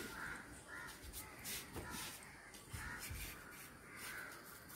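Crows cawing repeatedly, with a few dull low thumps in between.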